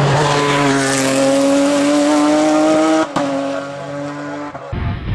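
Gomez GC10 hillclimb race car engine at high revs, its pitch climbing steadily as it accelerates. About three seconds in there is an upshift with a sudden drop in pitch. Near the end the sound changes abruptly to a quieter, deeper rumble.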